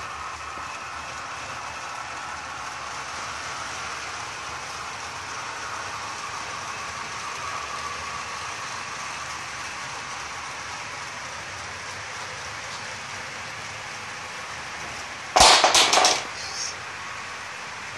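HO-scale model steam locomotive and its train running steadily along the layout's track. About three-quarters of the way through, a short loud clatter of several sharp knocks lasts under a second.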